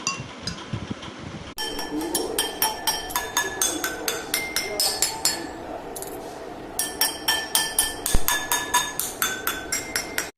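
Water-filled glasses tuned to different pitches struck one after another, each giving a short clear ringing note, playing a quick run of a tune. A pause of about a second comes midway.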